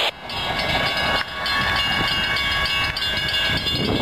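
Florida East Coast Railway freight train passing a grade crossing, its rumble overlaid by the crossing bell ringing at a quick, steady rhythm.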